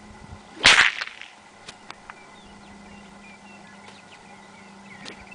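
A bull whip cracked once overhead, a single loud sharp crack a little under a second in, followed by a few faint clicks.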